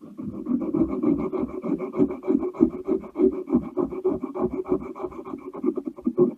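Sandpaper rubbed rapidly back and forth by hand on the rusty steel of a pair of pliers, in fast, even strokes.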